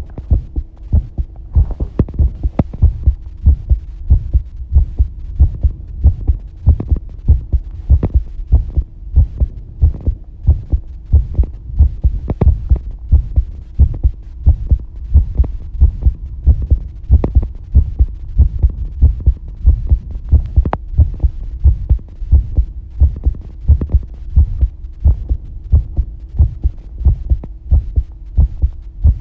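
Human heartbeat picked up close to the chest: low lub-dub thumps in a steady, even rhythm, with a faint steady hum underneath.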